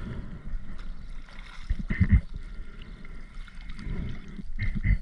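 Water gurgling and sloshing, with loud low rumbling surges near the start, about two seconds in, and just before the end.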